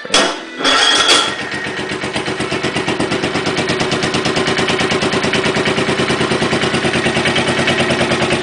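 Wheel Horse garden tractor's cold engine starting: a sharp bang and a short loud burst in the first second, then the engine running with a fast, even beat that grows a little louder over the next few seconds and holds steady.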